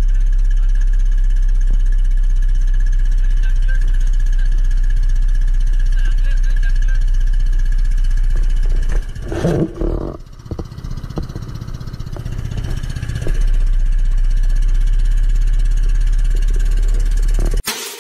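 Engine of a motorized outrigger boat running steadily while the boat is under way. It drops away for a few seconds about halfway through, returns, then cuts off just before the end.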